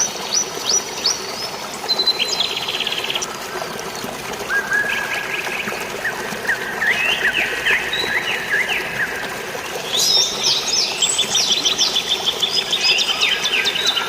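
Several songbirds chirping and trilling in quick, overlapping calls, busiest about ten seconds in, over a steady wash of rain and flowing water.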